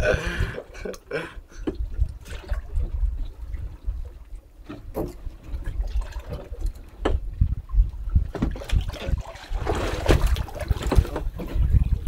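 Water lapping and sloshing against a small boat's hull over a low rumble, with scattered knocks and a louder rushing splash about ten seconds in.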